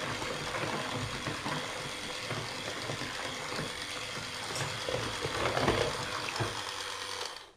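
Electric hand mixer running, its twin wire beaters whisking flour and whey into a smooth pancake batter in a plastic bowl. The motor cuts off just before the end.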